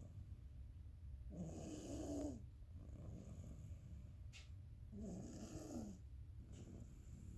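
A sleeping baby snoring: two snoring breaths, about three and a half seconds apart, over a low steady hum.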